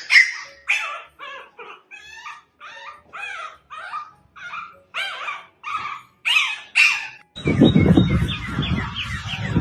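A dog whining and yelping in short, high calls, about two a second. It is a dog that thinks it is shut outside and wants to come in. Near the end a different, low rumbling noise takes over.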